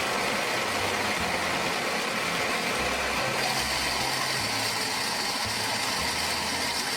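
Toy blender running with M&M candies inside, a steady motor whir.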